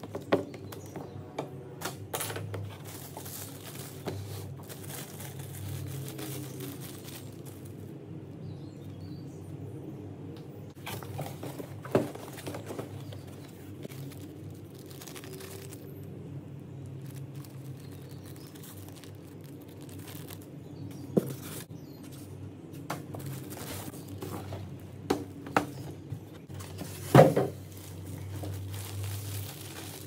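Unboxing handling sounds: paper, cardboard and plastic packaging rustled and vacuum parts picked up and set down, with scattered taps and knocks, the sharpest near the end. A steady low hum runs underneath.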